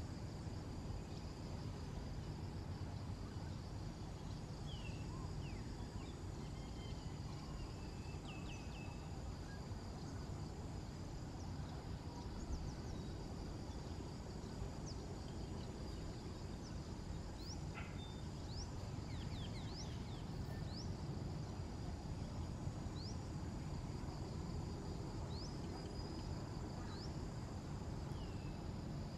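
Outdoor ambience: a steady high insect drone with scattered short rising bird chirps throughout, over a steady low rumble.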